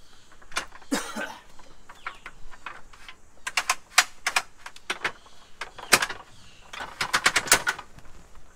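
Dometic caravan awning's metal telescopic leg being pushed in and stowed against the caravan's side: a scrape of the sliding sections, then clicks and rattles, a sharp clack about six seconds in, and a quick run of rattling clicks near the end.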